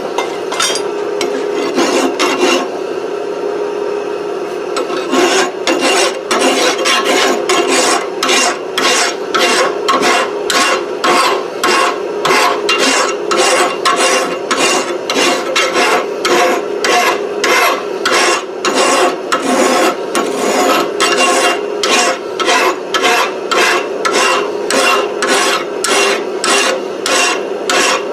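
Farrier's file being worked by hand over a hot-forged 4140 steel round punch, smoothing off high spots left by the hammer. The strokes are sparse at first and then come in an even rhythm of a little under two a second.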